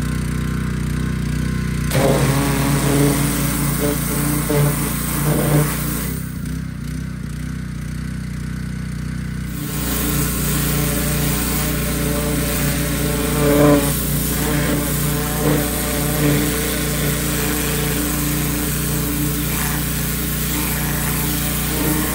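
Gas-engine pressure washer running steadily while its wand sprays water onto a wheel, the spray hissing. The spray stops for about three seconds around six seconds in, then resumes.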